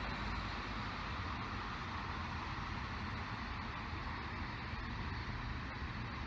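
Steady rolling rumble and hiss of a passing train, with no horn sounding.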